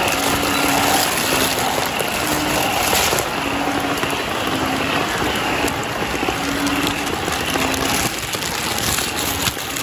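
Heavy rain falling steadily, with frogs calling through it: short, low, hooting notes repeated about once a second, the calls of banded bullfrogs (Asian painted frogs).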